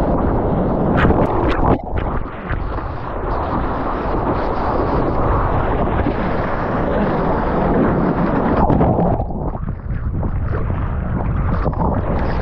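Breaking whitewater rushing and surf splashing over the close microphone, with wind buffeting it. The rush dulls briefly about two seconds in and again near nine and a half seconds.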